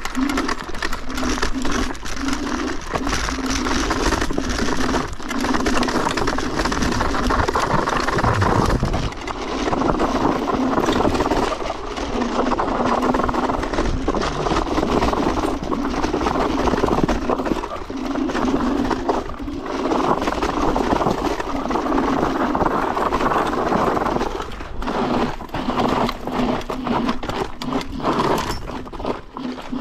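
Riding a Yugen RX11 electric scooter: steady wind rush and buffeting on the microphone with road rumble, and a low hum that comes and goes.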